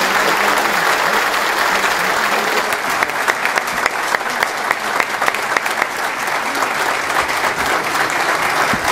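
A large audience applauding in a hall, with single sharp claps standing out from about three seconds in.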